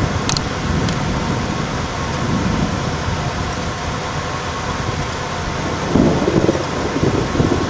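Storm wind rushing and buffeting the microphone in a steady, rumbling noise, with a louder gust about six seconds in. A single short click comes just after the start.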